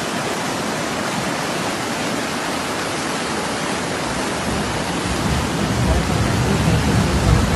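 Heavy rain and rushing floodwater making a steady, loud hiss, with a low rumble building from about five seconds in.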